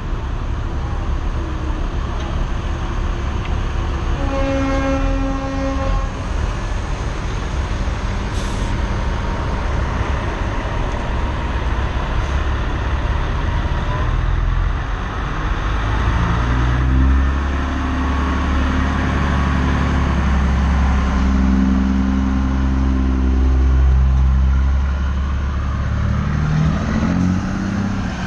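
Heavy show trucks' diesel engines rumbling as they drive slowly past, with a truck air horn sounding for about a second and a half about four seconds in. In the second half a truck engine grows much louder and deeper as it pulls past, rising in pitch near the end.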